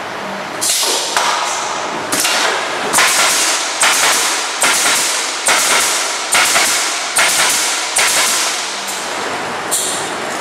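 Pallet Chief automated pallet nailing machine firing its pneumatic nailers in a steady sequence: about a dozen sharp shots, a little under a second apart, each trailing off in a hiss, over the machine's steady running noise.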